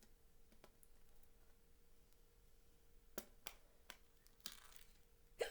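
Near silence, broken in the second half by about five faint, sharp clicks and taps, the last one the loudest near the end, typical of handling small parts of a disassembled tablet.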